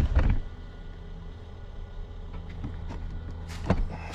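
A steady low mechanical hum with two knocks of metal parts being handled, one at the start and one near the end.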